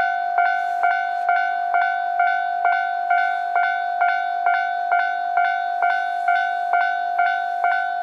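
Japanese railway level-crossing alarm ringing its repeated 'kan-kan' strikes, a little over two a second, at an even pitch. It warns that a train is approaching while the barriers are down.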